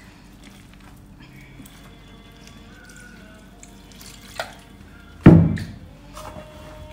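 Warm water trickling and dripping from a plastic pitcher onto flour in a metal tray as hands mix it in, quiet throughout. A single loud thump about five seconds in.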